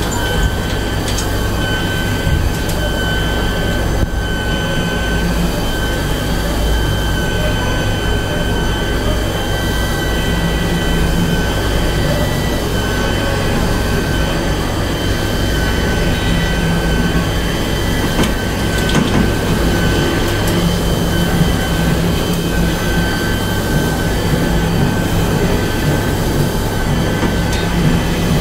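Steady machine drone: a low electrical hum with a thin high-pitched whine over it, running unchanged throughout.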